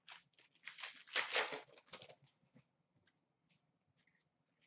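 Hockey card pack wrapper being torn open and crinkled by hand, a crackling run of about two seconds, followed by a few faint ticks.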